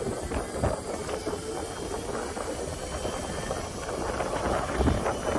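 Electric pit bike riding off: rough wind and tyre noise with a faint high motor whine, getting louder from about four seconds in as it picks up speed.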